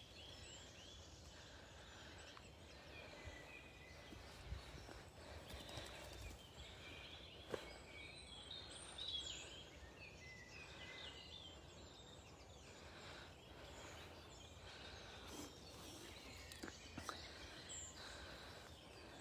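Faint songbird song: scattered chirps and short whistled phrases from several birds, with a few soft knocks.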